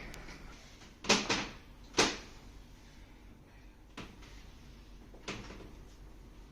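A few short knocks and rustles from a patient and chiropractor shifting on a treatment table during a chiropractic adjustment. There are two close together about a second in, a louder one a moment later, a sharp click about four seconds in and a softer knock after it.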